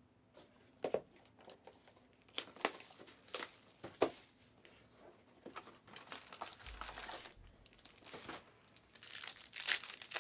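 Plastic wrapping on a sealed trading-card box crinkling and tearing as it is handled and opened. There are a few sharp cracks at first, then denser crinkling near the end.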